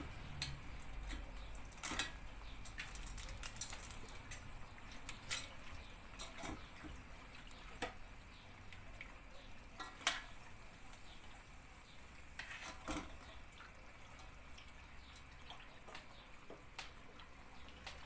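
Quiet stirring: a metal spoon working caramelised sugar syrup in a steel pot and a wire whisk beating milk pudding in an enamel pot, with scattered clicks and clinks of metal against the pots every second or two.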